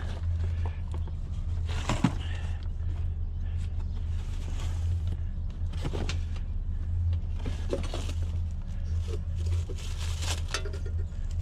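A steady low vehicle engine hum, with a few knocks and rattles of scrap metal being handled about 2, 6, 8 and 10 seconds in.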